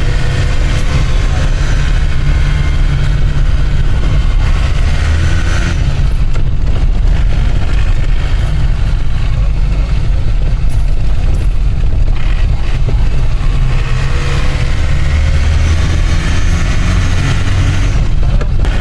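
Engine and road noise inside the cabin of a tempo traveller van driving slowly downhill, a steady low engine hum under tyre and road rumble.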